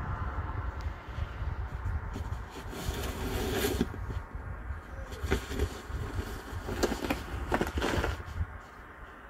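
Plastic snow shovel scraping along a snow-covered sidewalk in several separate strokes, over a steady low rumble.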